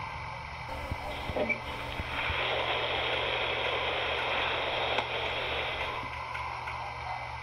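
Coal-loading sound effect of an animated model coaling tower: a few clicks, then a steady hiss of coal pouring down the chute into the steam locomotive's tender, starting about two seconds in and stopping about six seconds in, over a steady low hum.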